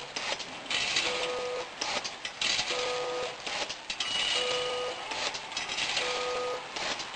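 ZV-320A vertical form-fill-seal snack packing machine running through its bag-making cycle. The cycle repeats about every 1.6 seconds: a hissing burst, then a short hum, with clicks in between.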